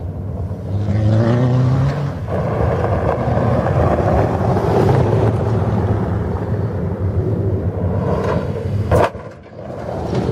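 A 4x4's engine revs and accelerates on a dirt track, rising in pitch over the first two seconds, then runs steadily under a noisy rush. There is one sharp knock about nine seconds in, then a brief drop in level.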